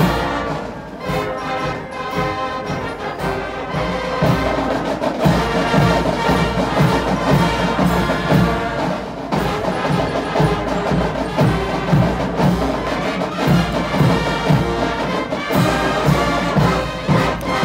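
School marching band of brass and drums playing, with a steady drum beat under the brass.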